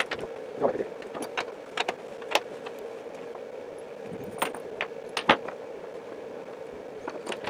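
Irregular metallic clinks and light knocks of a wrench, washers and bolts being handled on a CNC router's perforated spoilboard while wooden hold-down clamps are set. A steady hum runs underneath.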